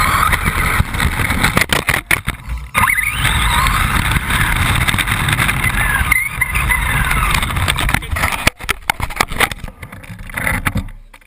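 RC buggy driving with its motor revving up and down in a rising and falling whine, over a rattling, rumbling drive across rough ground, with brief drops where the throttle lets off. The buggy fades out near the end.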